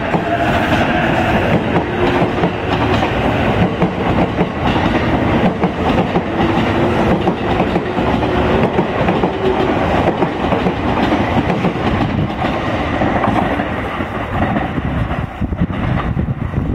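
JR East E353 series electric express train accelerating past on departure, its wheels clacking over the rail joints. A motor whine rises slowly in pitch over the first several seconds, and the sound eases off near the end as the last cars pull away.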